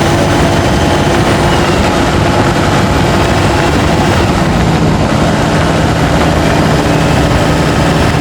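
Turbocharged diesel pickup engine running loud and steady under load up a steep grade, heard through a microphone under the hood.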